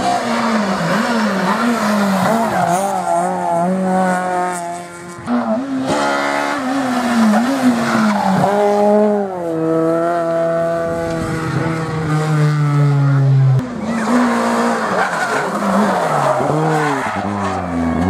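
Turbocharged four-cylinder rally car engines at full stage pace, revving up and dropping back again and again through the gears, with one long falling sweep near the middle and a sudden cut in the note about three-quarters of the way through.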